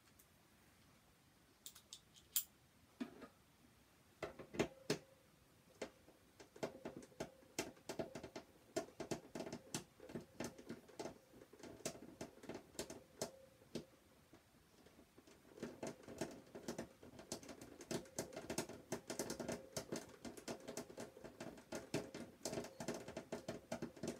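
Hand screwdriver being twisted at a stuck screw: a faint run of rapid, irregular clicks and scraping that starts about four seconds in, with a short pause about two thirds of the way through.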